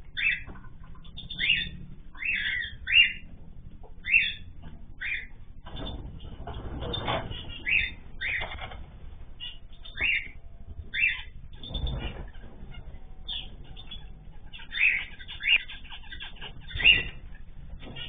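Aviary birds calling with short, repeated chirps, a dozen or so of them loud, mixed with bursts of wing flapping about six seconds in and again around twelve seconds.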